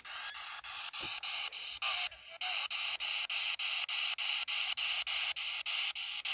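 A spirit box (ITC Research Device) sweeping through radio frequencies: radio static chopped into short bursts about four to five times a second, with a brief break about two seconds in.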